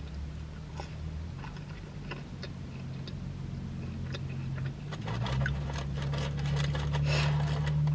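Chewing of french fries with small clicks, then a denser crackling about five seconds in as a fast-food bag is handled, over a steady low hum.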